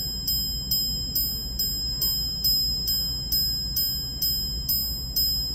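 Audemars Piguet Royal Oak Minute Repeater Supersonnerie chiming the time: its hammers strike the gongs in an even run of about three strikes a second. Each strike rings on as a high, bell-like note.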